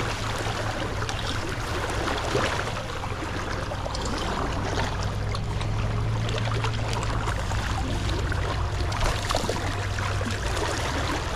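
Steady rush of a shallow tailwater river's current flowing around the wading angler.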